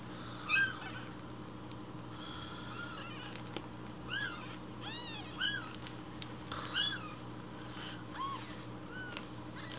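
Newborn kitten mewing: about nine short, high-pitched mews, one about half a second in, a quick run of four in the middle and a few more spaced out toward the end.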